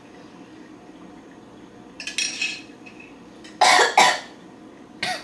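A woman coughing after choking on a drink sipped through a straw: a short splutter about two seconds in, then two loud coughs close together, and another cough near the end.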